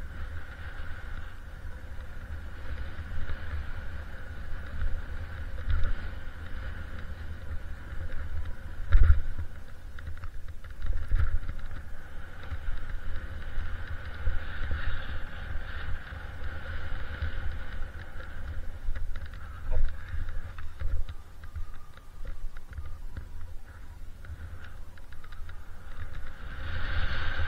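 Skis sliding over snow on a downhill run, with wind rumbling on the camera's microphone and a heavy thump about nine seconds in.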